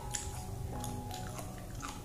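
Close-up chewing while eating balut, with a few sharp clicks and smacks, over soft background music.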